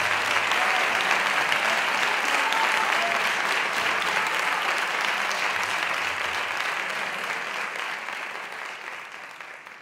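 Audience applauding steadily at the close of a flamenco performance, the clapping fading away near the end.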